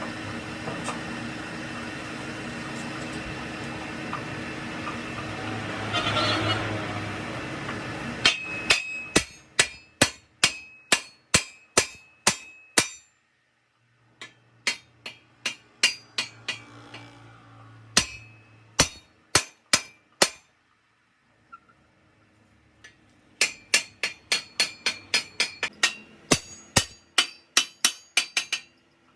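Repeated hammer blows on metal, about three a second, each with a bright ring, coming in three runs separated by short silences. Before them, about eight seconds of steady mechanical noise.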